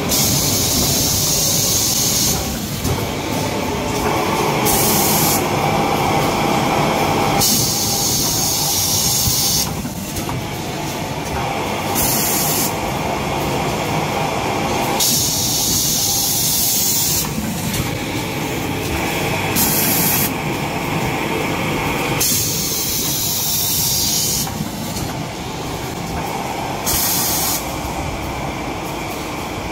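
Kitchen towel roll bundle packaging machine running, with a steady mechanical clatter and a loud hiss roughly every four seconds, alternately about two seconds and about half a second long, as it wraps each bundle.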